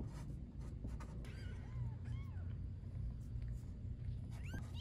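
Newborn kittens mewing: thin, high peeping cries, a few short ones between about one and two and a half seconds in, then louder ones near the end. A low steady hum runs underneath.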